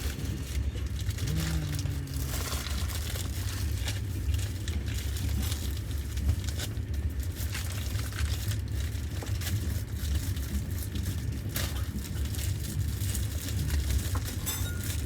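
Steady low rumble of a moving passenger train, with plastic packaging crinkling and crackling close by as food is unwrapped.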